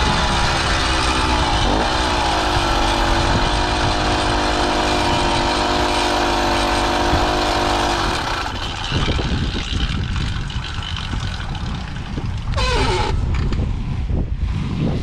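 Two-stroke motorized bicycle engine running steadily, its pitch dipping briefly about two seconds in. About eight seconds in the engine note stops suddenly, leaving a rough rushing noise like wind and rolling.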